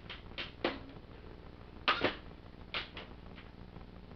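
About eight sharp plastic clicks in small clusters as the joints of a Transformers Titans Return Trypticon figure are moved and tilted into a new pose.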